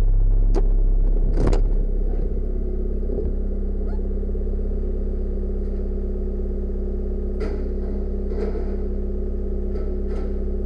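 Linde forklift engine running, easing down from higher revs to a steady idle about two seconds in, with a few short clicks over the hum.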